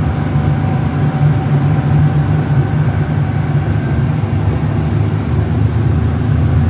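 Fishing boat's engine running steadily, a deep, even drone.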